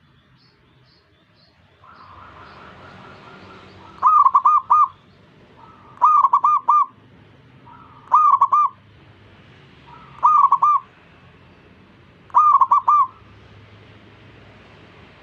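Zebra dove (perkutut) cooing: a phrase of quick rolling notes repeated five times about every two seconds, starting about four seconds in, with a fainter dove cooing just before and a few faint high chirps at the start.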